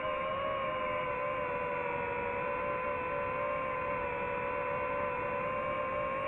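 Steady whine of a DJI FPV drone's motors and propellers in cruise, a held tone with a higher overtone that wavers slightly in pitch.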